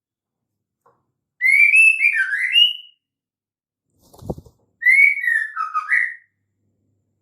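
Female white-rumped shama giving two short whistled, warbling phrases, each about a second and a half of notes sliding up and down, with a short low thump between them. The call is used as a lure to set male shamas singing.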